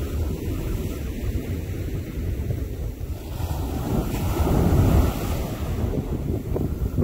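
Wind buffeting the microphone over the rush of ocean surf, a steady low rumble that swells to its loudest about four to five seconds in.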